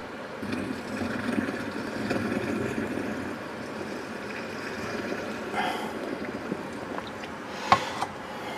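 Boiling water poured through a plastic funnel into a glass boiling flask of sulfur and sodium hydroxide, a steady pouring sound as the lye mix bubbles and reacts. A sharp click near the end.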